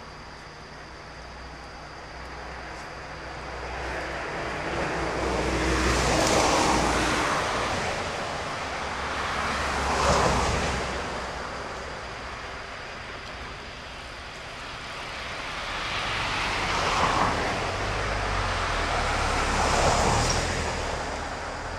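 Vehicles passing one after another: a rushing noise swells and fades about four times, over a low hum.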